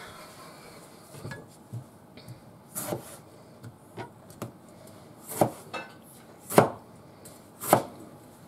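Kitchen knife cutting through tomatoes and striking a wooden cutting board: uneven knocks, light and scattered at first, then three louder chops about a second apart in the second half.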